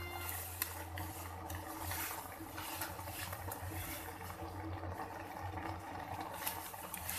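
Granulated sugar pouring in a stream onto grated carrots in a steel cooking pot: a steady grainy hiss with many small ticks.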